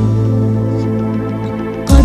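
Instrumental introduction of an Arabic cartoon theme song: sustained chords held steady, then a loud new section strikes in near the end with a rising glide.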